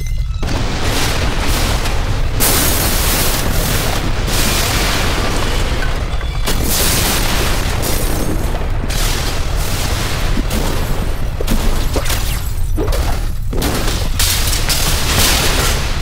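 Earthquake and explosion sound effect: a constant deep rumble with loud booming, crashing surges every few seconds.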